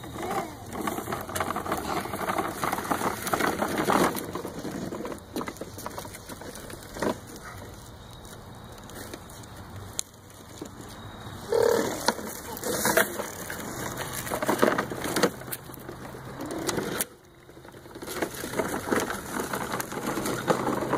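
Dry leaf litter rustling and crunching under a toddler's feet, with scattered knocks and rattles from a plastic toy truck being pushed over the ground.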